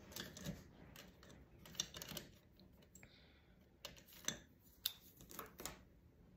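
Small clay-sculpting tools being gathered and set down on a work surface: faint, scattered clicks and light knocks, irregularly spaced.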